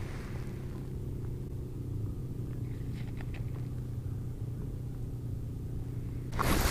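A steady low hum from a motor or engine running. A few faint ticks come about three seconds in, and a sudden loud rush of noise starts just before the end.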